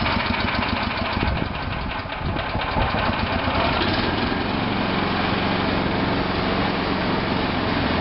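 Small air-cooled single-cylinder petrol engine of a portable concrete mixer running, uneven for the first few seconds, then settling into a steady idle about four seconds in.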